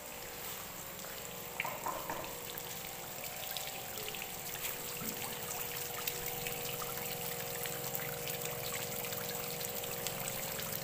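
Water pouring and trickling into a small decorative pond, a steady splashing with many fine droplets.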